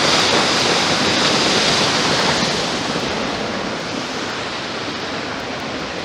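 Steady rush of water released from the dam, falling from a great height. It eases slightly about halfway through.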